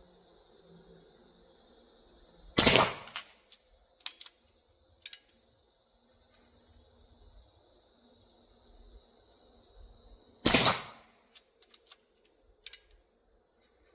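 Fisher Girandoni-type repeating air rifle, with its air reservoir filled to 700 psi, fired twice about eight seconds apart. Each shot is a sharp crack with a short tail, followed by a few faint clicks. A steady high-pitched insect chirring runs underneath and fades after the second shot.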